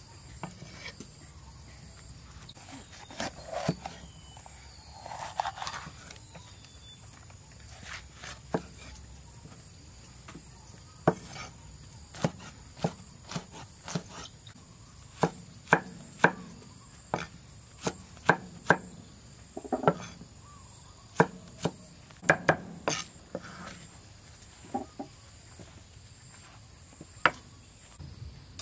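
Knife chopping on a wooden cutting board: a long series of sharp, uneven chops, coming thickest through the middle stretch.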